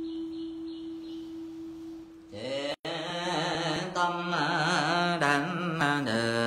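A single voice chanting in a slow, melodic Vietnamese Buddhist style, reciting Buddha names. It starts about two seconds in, after a steady held tone that stops abruptly.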